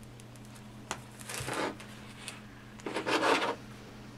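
Long strands of metallic craft thread rasping as they are drawn through a plastic ring, in two pulls, the second louder, with a light click about a second in. A faint steady hum runs underneath.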